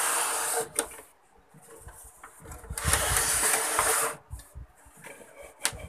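Two bursts of rubbing, rustling noise, a short one at the start and a longer one of about a second and a half near the middle, with a few sharp clicks in between, as the TV's power cord and cabinet are handled.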